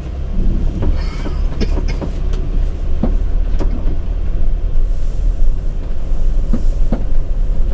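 Road noise inside the cabin of a moving Sprinter van: a steady low rumble with scattered clicks and rattles at irregular intervals.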